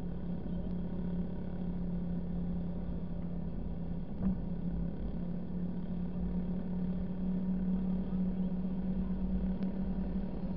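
Vehicle engine running at a steady cruising speed while driving on beach sand, a constant low hum with road and wind rumble beneath it. A single short knock about four seconds in.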